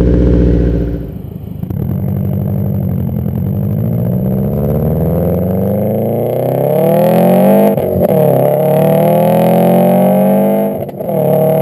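2011 Subaru WRX's turbocharged 2.5-litre flat-four, stage 2 tuned, heard through a TurboXS cat-back exhaust and Invidia downpipe while accelerating through the gears. The exhaust note climbs steadily in pitch, dips at an upshift about two-thirds of the way through and again near the end, then climbs again.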